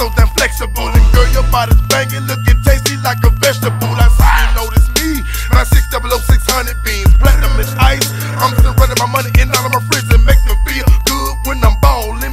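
Memphis rap track playing: a hard, busy drum beat over long, deep bass notes that change every couple of seconds.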